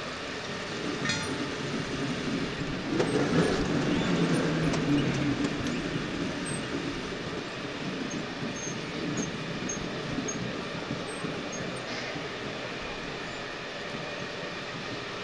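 Electric rental go-karts pulling away and running around the track, heard from a helmet-mounted camera on one kart: a steady motor whine with tyre and rushing noise, loudest about three to five seconds in as the karts accelerate.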